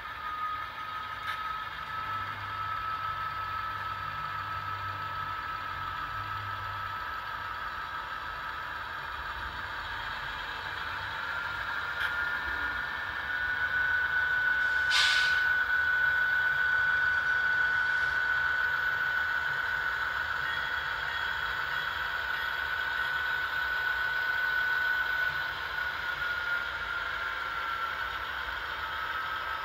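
Sound-equipped model diesel locomotives, a Kato AC4400 with a Tsunami sound decoder and an Atlas Dash 8 with a Tsunami 2, running past with simulated diesel engine sound from their onboard speakers. A steady whine rises in pitch a little past ten seconds in and drops back near the end. There is one short hiss about fifteen seconds in.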